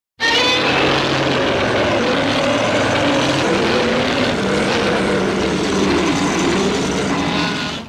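Long monster roar sound effect, pieced together from Godzilla and dinosaur roars: one rough, sustained roar of about seven and a half seconds whose pitch wavers, dips in the middle and rises again, starting and stopping abruptly.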